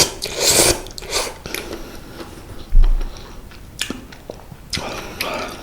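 A person eating malatang instant noodles: slurping and chewing with soft wet clicks, with a dull thud about three seconds in.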